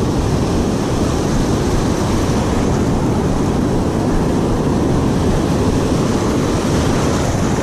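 A set of waves breaking and surf washing through the shallows in a steady noise, with a low rumble of wind on the microphone.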